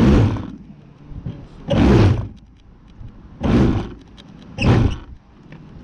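Handheld electric starter spinning a model airplane engine in four short bursts, about half a second each; the engine does not catch and keep running.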